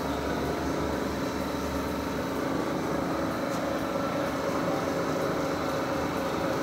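Electric hydraulic pump of a shop press running steadily, a constant machine hum with several steady tones.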